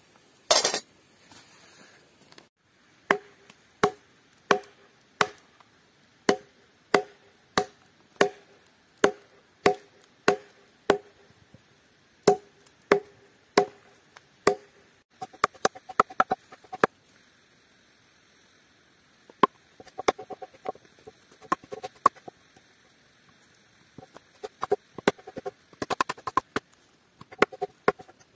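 Hatchet chopping into a wooden plate blank that rests on a log. First come steady, even strikes about one and a half a second, each with a short hollow wooden ring; then faster, lighter, irregular chopping in clusters. A brief loud rush of noise comes right at the start.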